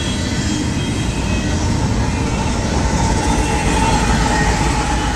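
Double-stack intermodal container train of well cars rolling past close by: a steady rumble and clatter of steel wheels on the rails, with a thin steady whine joining about two seconds in.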